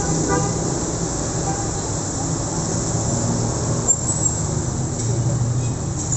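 Road traffic passing close by: motorcycles and minibuses driving past with a steady engine rumble and tyre noise. A single sharp click is heard about four seconds in.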